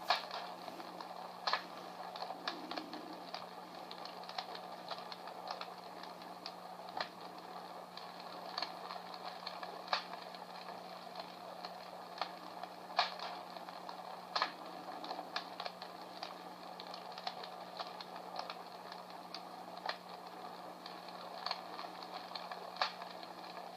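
Battery-operated Comfort Smart Fire Crackler sound-effect device playing an imitation log-fire crackle: irregular snaps and pops over a soft hiss.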